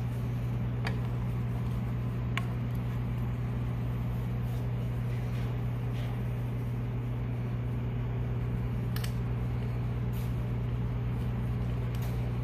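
Steady low hum in the background, with a few light clicks and taps as the plastic air filter housing is handled and fitted onto a small mower engine.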